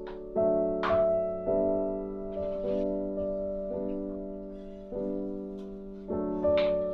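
Background music: a soft piano playing slow sustained chords, a new chord struck about every second.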